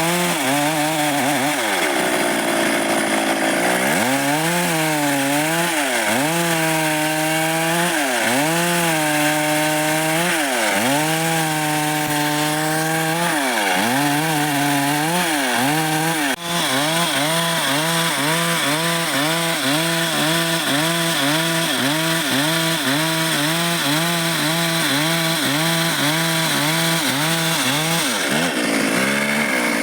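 Stihl MS 382 two-stroke chainsaw cutting dry wood, its engine pitch dropping as the chain bites and rising again each time it eases off. The dips come slowly at first, then about one and a half times a second in the second half.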